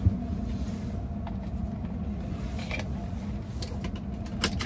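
Steady low rumble heard from inside a parked car, with a few faint clicks and taps.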